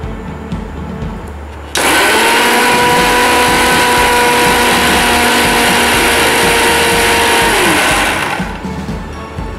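Electric mixer grinder blending a green chutney of coriander, mint, curd and green chilli in its small chutney jar: the motor starts sharply about two seconds in, runs at a steady whine for about six seconds, then winds down with a falling pitch.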